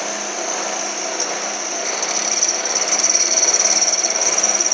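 Drill press with its add-on electric power feed running: a steady high whine with a fast rattle, getting louder about two seconds in.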